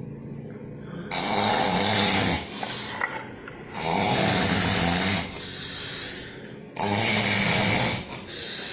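Heavy snoring: three long snores, one about every three seconds, each followed by a quieter breath.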